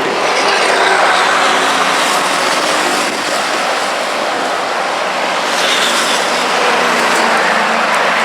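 Heavy road traffic: cars and trucks passing at low speed, a dense, continuous mix of engine and tyre noise with the low hum of engines beneath it.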